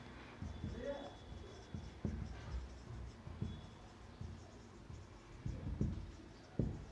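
Marker pen writing on a whiteboard: a string of faint, short strokes as the tip moves across the board.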